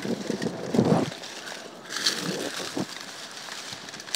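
Dry grass, reeds and dead leaves rustling and crackling as someone pushes through tall vegetation and steps on dry litter. There is a louder, muffled low sound in the first second.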